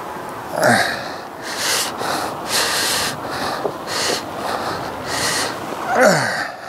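A man breathing and puffing hard close to a clip-on microphone, in short bursts about once a second. Two short falling sounds come through, one near the start and one near the end.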